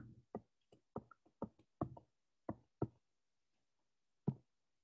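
Pen stylus tapping on a tablet screen while handwriting: about a dozen faint, short taps at an uneven pace, one last tap alone near the end.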